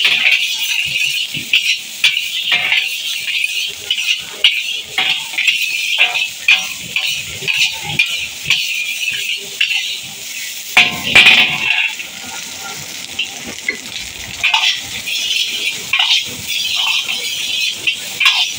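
Chicken fried rice sizzling in a large black wok while a metal spatula stirs and tosses it, scraping and clanking against the pan many times over a steady frying hiss. There is one louder stretch of about a second just past the middle.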